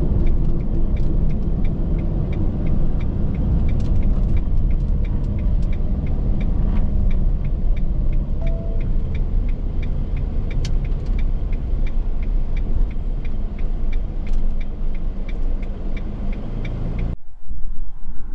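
Motorhome driving on the highway: a steady low rumble of engine and road noise, with a faint regular ticking about twice a second. The rumble cuts off abruptly about a second before the end.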